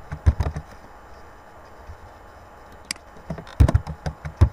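Computer keyboard keystrokes in two quick bursts, one at the start and one from about three seconds in, with a single sharper click just before the second burst: a password being typed and then typed again to confirm it.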